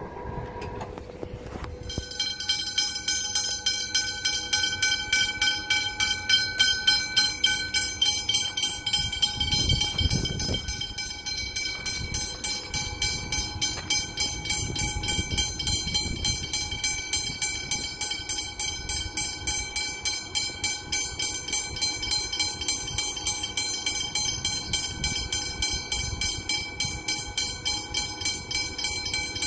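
Level crossing warning bells ringing in a fast, steady repeating clang, louder from about two seconds in, with a low rumble swelling around ten seconds in.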